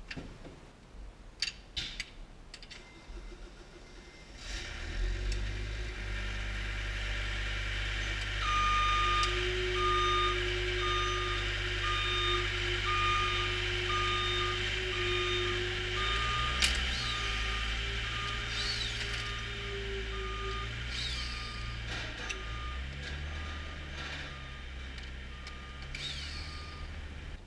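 A vehicle's engine running with a low rumble, and from several seconds in its reversing alarm beeping steadily a little more than once a second. A few sharp clicks come in the first seconds.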